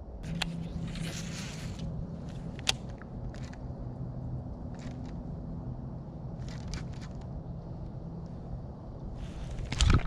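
Scattered clicks and scrapes from handling a baitcasting rod and reel, over a steady low hum, with a loud low thump right at the end.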